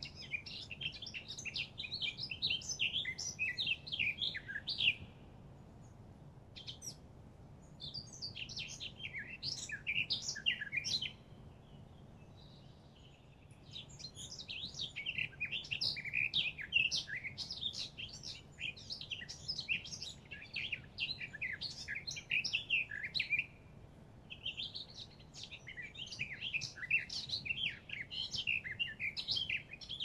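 A songbird singing long phrases of rapid, high twittering notes: four phrases of several seconds each, broken by short pauses.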